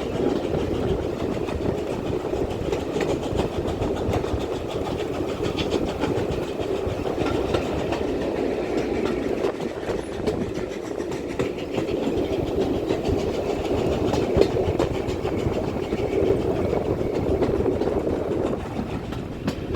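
Steam-hauled heritage train running along the line, heard from on board: a steady rumble of the wheels on the track.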